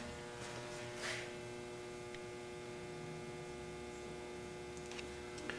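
Steady electrical hum with several even tones, with a brief rustle about a second in and a couple of faint clicks near the end.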